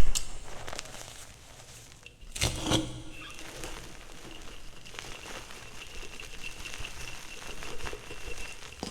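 Chalk being crushed and crumbled close to a microphone: a loud thump at the start, a loud crunch about two and a half seconds in, then soft irregular crackling. A faint steady high-pitched tone runs under the crackling.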